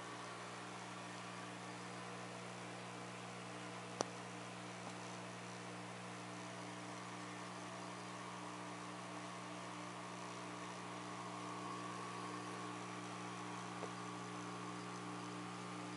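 Smith Corona Coronet 12 electric typewriter switched on and idling, its motor giving a steady low hum, with one sharp click about four seconds in.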